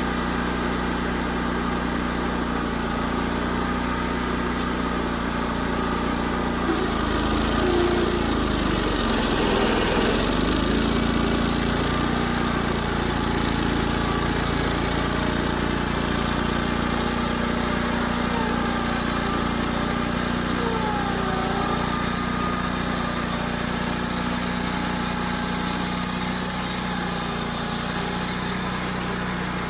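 Engine of a Wood-Mizer LT35 portable band sawmill running steadily. About seven seconds in, a higher hiss joins and stays as the band blade goes into the red oak log.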